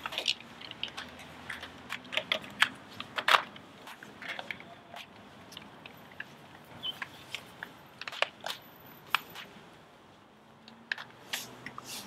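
Ski goggle lenses being swapped by several people at once: irregular sharp plastic clicks and snaps as lenses are unclipped from the frames and pressed into place, thickest in the first few seconds.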